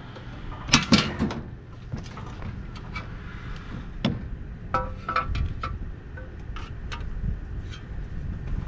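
Metal clanks and clinks from working copper off a dismantled pool heat pump with a hand tool: scattered sharp knocks, a loud cluster about a second in, and a few ringing metallic strikes around the middle.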